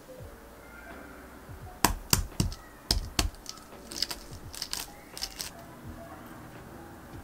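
Hard-boiled egg cracked against a paper-towel-covered wooden board: about five sharp knocks of eggshell about two to three seconds in, then lighter crackling as the shell breaks up and is peeled away.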